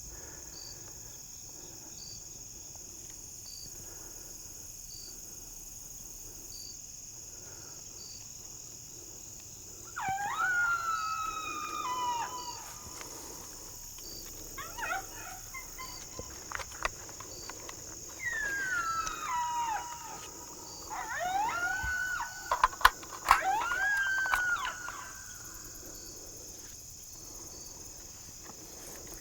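Coyote howls and yips in several bursts of wavering, mostly falling calls, starting about ten seconds in and lasting about fifteen seconds, over a steady chorus of crickets. A few sharp clicks come during the loudest burst.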